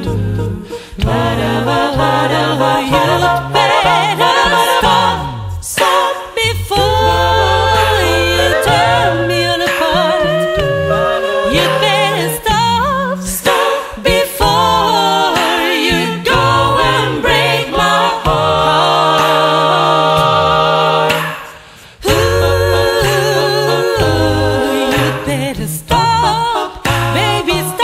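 A cappella vocal music: several voices singing in close harmony over a sung bass line, with no instruments, pausing briefly about three-quarters of the way through.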